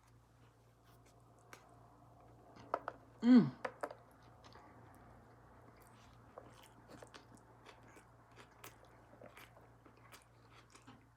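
Close-up mouth sounds of someone eating a chili cheese dog: wet chewing, smacking and small clicks. About three seconds in comes one short, loud vocal sound that falls in pitch, the loudest thing here.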